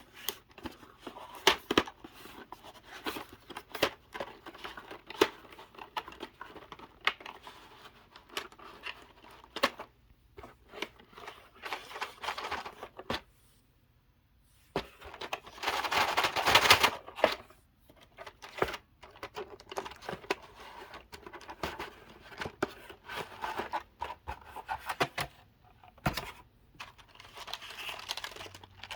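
Packaging being opened by hand: plastic and paper crinkling, rustling and tearing, with many light clicks and taps throughout. There is a short pause about halfway through, then the longest and loudest burst of rustling.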